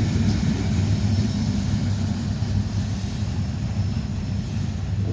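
Train going by, a steady low rumble that eases slightly toward the end.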